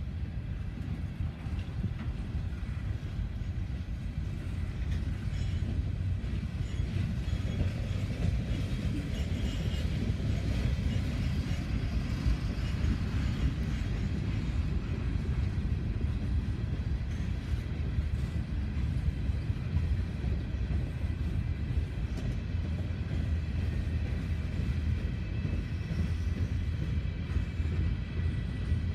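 A string of empty Norfolk Southern coal cars rolling past steadily, a continuous low rumble of steel wheels on the rails.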